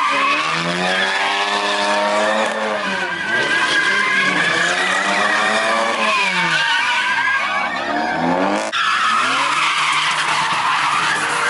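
A car's engine revving up and down in repeated sweeps while its tyres skid and squeal on the pavement. The sound changes abruptly about nine seconds in.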